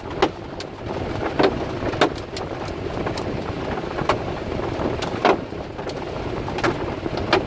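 Hailstones striking a vehicle's metal body: scattered, irregular sharp clanks over a steady rushing noise of the storm.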